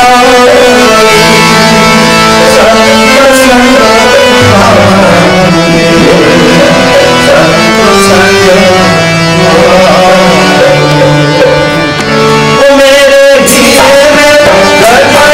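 Indian devotional music of a nam sankirtan: a held, chord-like accompaniment that steps between notes under a wavering melody, with drums. The music breaks off briefly about 13 seconds in.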